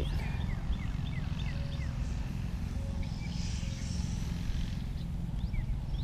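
Wind rumbling on the microphone, with birds chirping: short, falling chirps repeated over and over.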